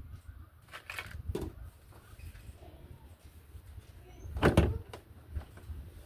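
Knocks and clunks from parts being handled during the washing machine repair: a couple of light ones near the start and a louder one about four and a half seconds in.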